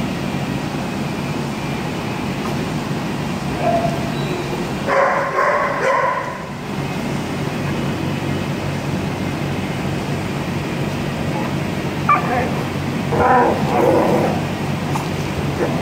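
Dogs wrestling in play, with a dog giving short yips and barks about five seconds in and again in two clusters near the end, over a steady low hum.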